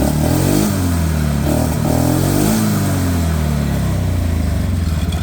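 2001 Polaris Sportsman 500 HO ATV's single-cylinder four-stroke engine running without misfiring, its speed rising and falling, with the CDI box's black kill wire disconnected.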